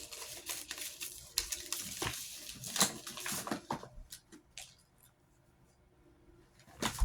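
Packaging being handled and opened, rustling and crinkling with many short clicks, fading to near silence about two-thirds of the way through, then a louder rustle near the end.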